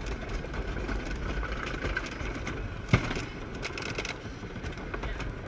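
Roller coaster train running along its track with a low rumble, a sharp clack about three seconds in and a few lighter clicks after it.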